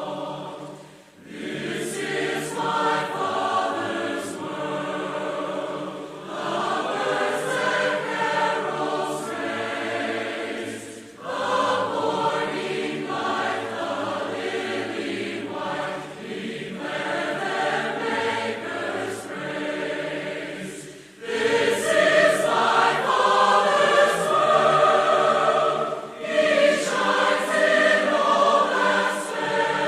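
Background music of a choir singing in long held phrases, growing louder about two-thirds of the way in.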